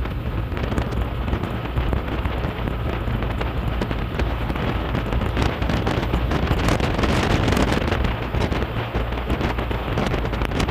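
Steady rush of wind and road noise in an open-sided motorcycle tricycle moving along a wet highway, with rain pattering in many small ticks.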